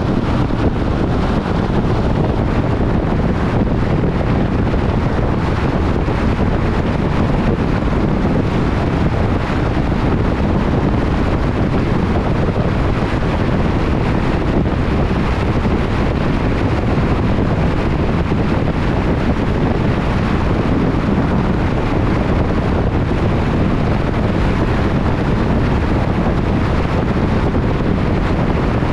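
Steady rush of wind and tyre noise from a car driving at highway speed, with wind buffeting the microphone.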